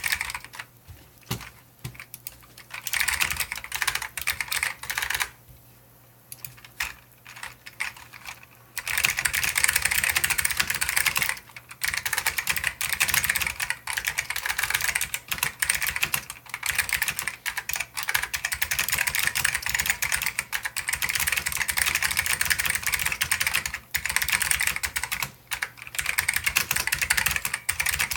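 Typing on an Ortek MCK-101 keyboard with clicky Alps SKCM White switches: scattered keystrokes with a short pause for the first several seconds, then fast, continuous typing with brief breaks.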